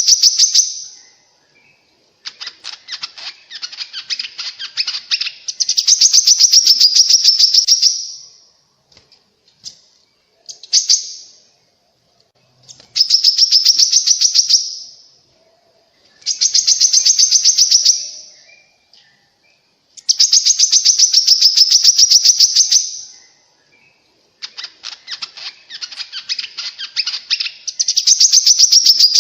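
Korlap bird song, played as a lure: loud, high-pitched phrases of rapid chattering notes, each two to three seconds long, repeating after short pauses.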